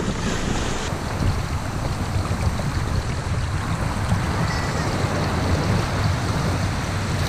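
Shallow surf washing and splashing around wading legs and a sand scoop, over a steady wind rumble on the microphone.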